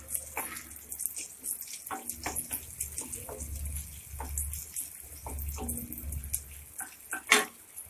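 Curry leaves and turmeric crackling and sizzling in hot oil in a steel kadai while a spatula stirs them, with a sharp knock near the end.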